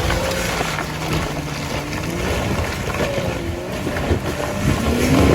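Jeep Wrangler engine revving up and down under load, with wind buffeting the microphone.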